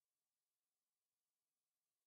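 Near silence: no audible sound, only a faint hiss.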